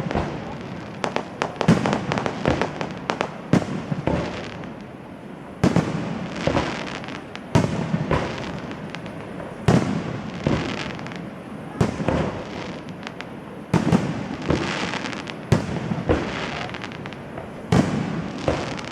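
Fireworks display: a rapid series of shell bursts, sharp bangs coming every second or two, with crackling and fizzing between them.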